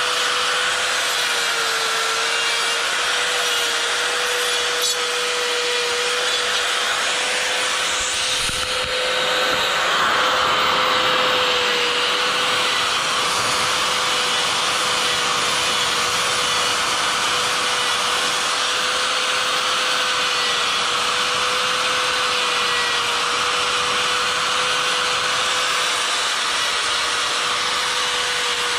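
Electric die grinder with a Saburrtooth flame burr running at a steady high whine while grinding wood, with the grinding a little louder around ten seconds in.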